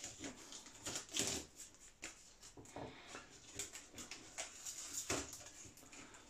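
Faint, scattered clicks, creaks and crackles of a crash-damaged balsa model-plane fuselage being handled and broken apart by hand.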